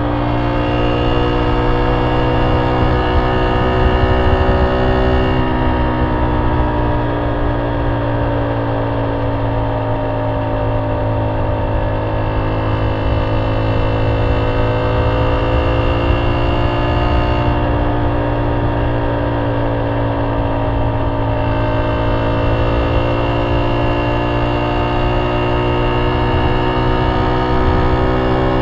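Honda C70's single-cylinder four-stroke engine running through a banana-style ('pisang') exhaust while cruising. Its pitch sags and picks up again a couple of times as the throttle eases and opens, over a low wind rumble on the microphone.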